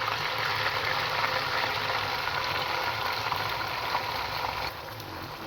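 Beaten egg, milk and sugar mixture sizzling in hot desi ghee in a frying pan, a steady hiss. Near the end the sizzle suddenly gets quieter.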